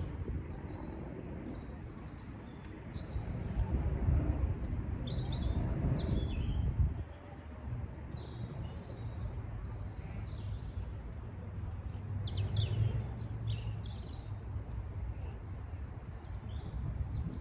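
Several birds chirping and singing in short calls, over a low rumble that drops away about seven seconds in.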